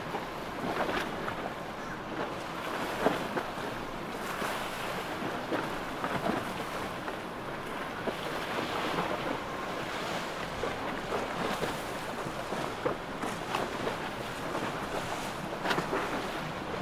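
Rushing, splashing water and waves, with wind buffeting the microphone and frequent short splashes.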